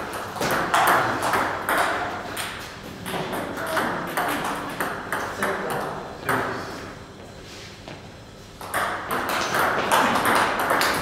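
Table tennis ball clicking back and forth between the bats and the table in quick, sharp pocks during play. There is a lull of about two seconds after the middle, then a fast run of clicks again near the end.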